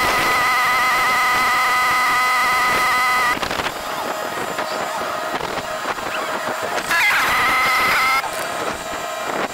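Motorcycle engine running at steady revs under way, its note loud for about three seconds, then easing to a quieter hum, then loud again for about a second near the end.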